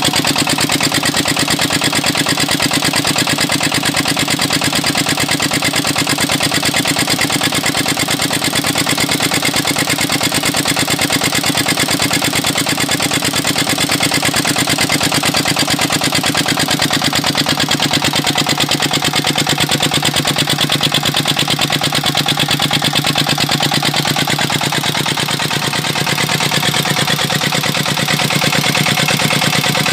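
A 25 HP stationary diesel engine runs steadily with an even, rapid firing beat. It is belt-driving a Niagara 6-inch GTO-6 water pump.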